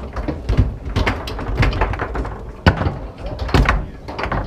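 Foosball in play: the ball being struck and trapped by the plastic men and rods sliding and banging against the table's bumpers, giving irregular sharp knocks, the loudest about two and a half seconds in and again a second later.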